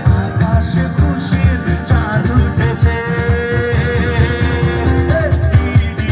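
Song with a sung melody over a steady, quick beat and instruments.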